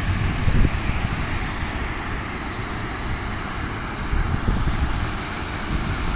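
Wind buffeting the microphone in gusts, with a steady rushing hiss beneath it.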